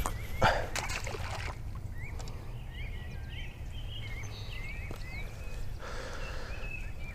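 Small birds chirping repeatedly in short rising notes over a steady low rumble. There are a few short bursts of noise, one about a second in and another near the end.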